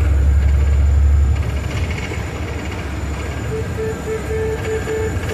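Truck engine running, heard from inside the cab as a steady low rumble that eases off about a second in. Near the end there is a quick run of short, evenly spaced beeps of one pitch.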